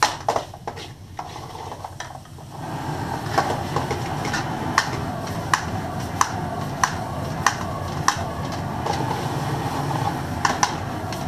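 Biryani rice being reheated and stirred in a metal frying pan on a gas stove. After a few knocks, a steady sizzle comes up about two and a half seconds in, and the utensil clicks sharply against the pan about every two-thirds of a second.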